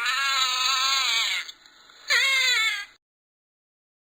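Otter calling: a long, high, wavering cry with a slight bend in pitch, then a shorter cry about two seconds in.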